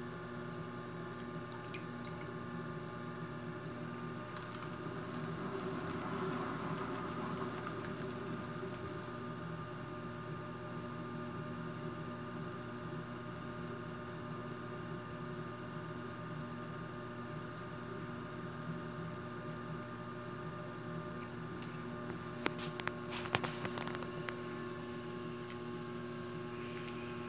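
Electric potter's wheel running with a steady hum while wet clay is worked on it by hand and a rib; a soft wet rubbing swells about five to eight seconds in, and a few light clicks come near the end.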